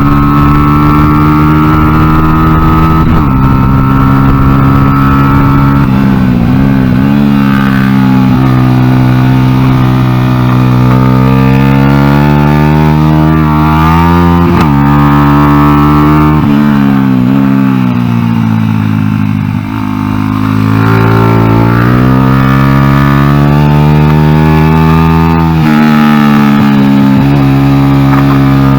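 Honda NSF100 mini racer with a swapped-in Honda XR100 single-cylinder four-stroke engine, ridden hard: the engine note climbs through the revs and drops sharply at several gear changes, with a brief lift off the throttle about twenty seconds in before it pulls again.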